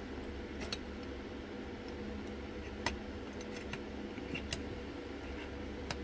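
Small metallic clicks and ticks of a lock pick working the pins inside an IKON euro-profile lock cylinder, coming irregularly, with a sharper click about three seconds in and another near the end. A steady low hum runs underneath.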